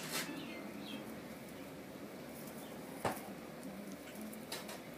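Quiet barn sounds: a few faint high chirps near the start, one sharp knock about three seconds in, and soft short sounds near the end.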